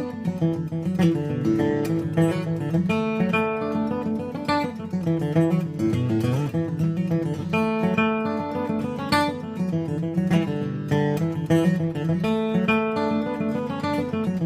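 Martin D-18 mahogany-bodied dreadnought acoustic guitar with Elixir phosphor bronze medium strings, played with a flatpick: a moving bass line under ringing chords, with steady, continuous picking.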